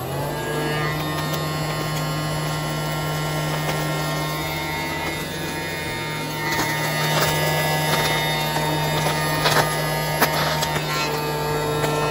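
Battery-powered Casdon toy Dyson Ball vacuum switched on, its small electric motor running with a steady buzzing hum. From about halfway, irregular clicks and rattles join it as the vacuum is pushed over the mat and sucks up the small bits.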